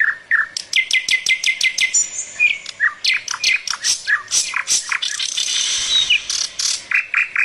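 Birds chirping and calling: many short, high calls in quick succession from more than one bird.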